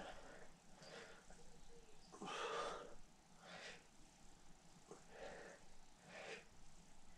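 A man breathing hard during push-ups on push-up handles: faint, forceful breaths about once a second, one breath per repetition, the loudest about two and a half seconds in.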